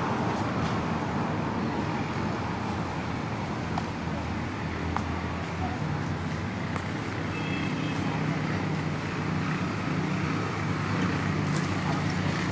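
Steady motor-traffic noise, with the low hum of a running engine growing stronger in the second half.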